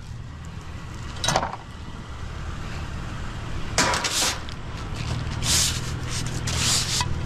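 Idling vehicle engine making a steady low hum, with several short scraping and rustling noises as scrap pieces are picked up and handled.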